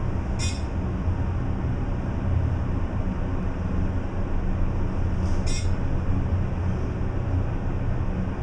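Elevator cab ventilation fan running with a steady, really loud low hum while the 1991 Dover hydraulic elevator travels. Two brief high hisses come through, about half a second in and about five and a half seconds in.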